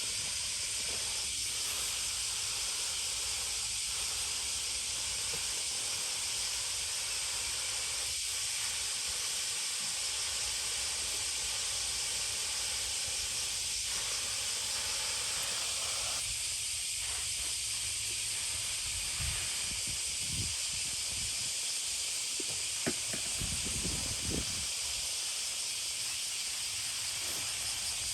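Steady, even hiss that does not change, with a few faint low knocks about two-thirds of the way in.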